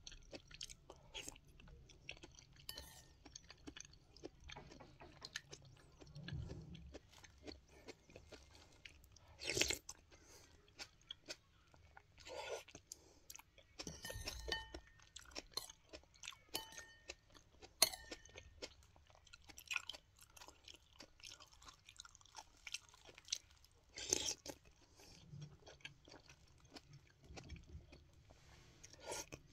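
Close-up chewing and crunching of a spoonful of es campur, an iced mixed dessert with milk and jelly, broken by sharp clicks of a metal spoon against a ceramic bowl.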